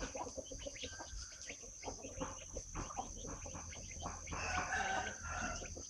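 Chickens clucking and calling amid short scuffling ticks, with a longer crow-like call about four and a half seconds in.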